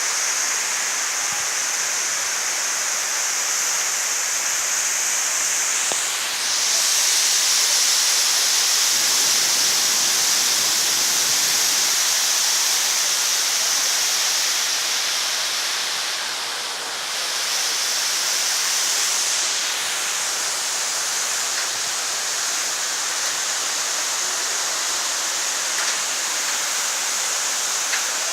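Waterfall: a steady rush of falling water, getting louder about six seconds in and dipping briefly around seventeen seconds.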